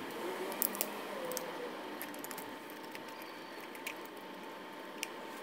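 Plastic screw cap being twisted off an engine oil bottle and the foil seal under it torn open, giving scattered small clicks and crinkles.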